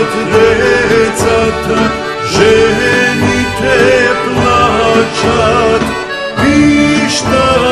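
Serbian folk song with an accordion carrying the melody.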